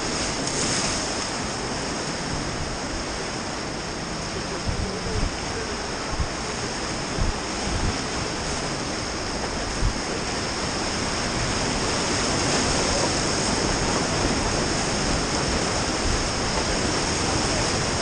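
Whitewater river rapids rushing steadily around an inflatable raft, with a few short low thumps in the middle, and a little louder in the second half.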